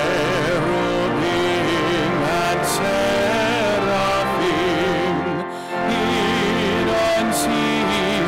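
Closing hymn: a singer with a wide vibrato over sustained accompanying notes, with a short break between phrases about five and a half seconds in.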